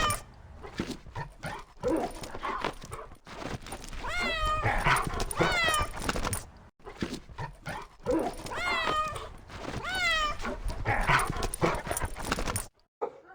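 A pet animal giving short, high-pitched cries in quick series, each one falling in pitch; the sound breaks off abruptly near the end.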